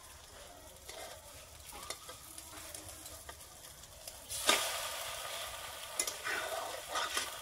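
Potato omelette frying in oil in a steel kadai, with a metal spatula scraping the pan. About four seconds in the omelette is turned over and the sizzle grows louder, followed by a few sharp scrapes of the spatula.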